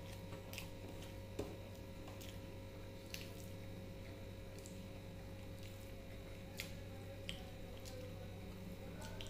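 Fingers squeezing and mixing rice with rohu fish curry on a plate: faint wet squishing with a few short sharp clicks, over a steady low hum.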